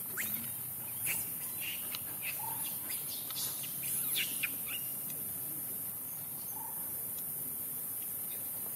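Forest ambience: a steady high-pitched insect drone, with about a dozen short, high, rising chirps and squeaks scattered through the first five seconds.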